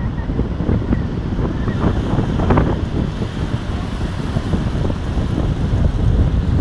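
Wind buffeting the microphone in a steady low rumble, over small waves breaking and washing up a sandy shore.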